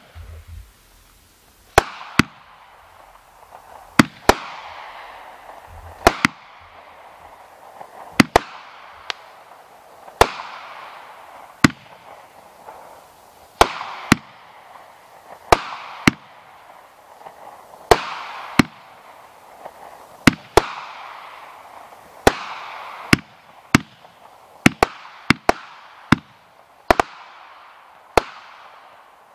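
Consumer aerial firework 'King of Brocade Crown' firing shot after shot, about one every two seconds, each shot two sharp reports close together followed by a fading rush of noise. The shots come quicker near the end.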